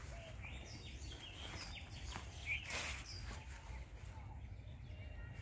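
Outdoor birds chirping in short scattered calls over a steady low rumble, with one brief burst of noise a little past the middle.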